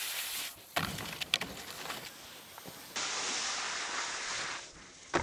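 Skis sliding over snow with a hiss of outdoor wind on the microphone, and a few sharp clicks about a second in. The hiss cuts and changes abruptly about three seconds in.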